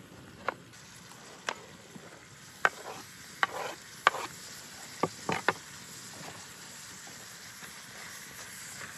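Food sizzling steadily in a pot over an open fire while a utensil is stirred through it, knocking and scraping against the pot several times at irregular intervals in the first six seconds.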